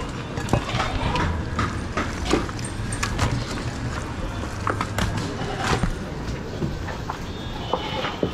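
Irregular knocks and thuds of mutton being handled: cut pieces dropped into an aluminium bowl and a butcher's knife working on a wooden chopping block, over a steady low rumble.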